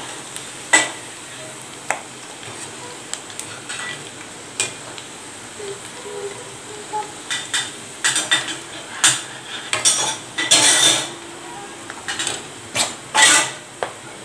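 Gram-flour-coated peanuts deep-frying in hot oil with a steady sizzle, while a wire mesh skimmer stirs them and knocks and scrapes against the pan. The sharp clinks come most often in the second half.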